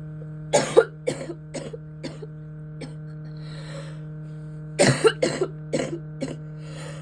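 A person coughing in two fits, each a quick run of harsh coughs, with a drawn breath in between: a persistent cough that won't stop.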